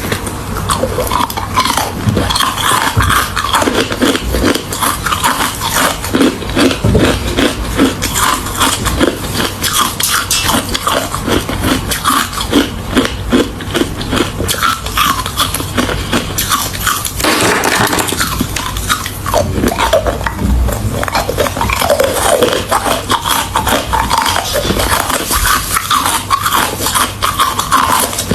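Close-up chewing of crushed hard ice: rapid continuous crunching and cracking of ice between the teeth, with a short pause partway through.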